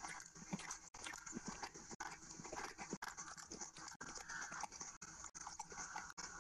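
Close-miked wet chewing and mouth sounds of rice and curry being eaten by hand, with squelching as fingers mix the rice and gravy. Brief gaps break the sound about once a second.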